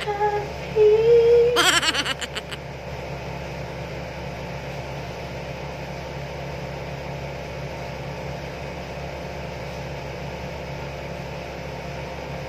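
Steady hum of a window air conditioner and electric fan running in a small room, with a low drone underneath. In the first two seconds a woman hums a short tune and there is a brief laugh.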